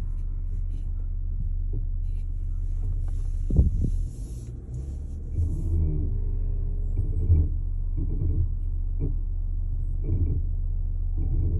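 Porsche engine running with a steady deep rumble, with a couple of brief louder surges.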